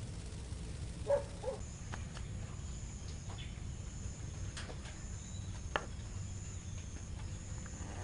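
Puppies whimpering twice, briefly, about a second in, over a steady low rumble. From about a second and a half a steady high whine sets in, with a few faint clicks.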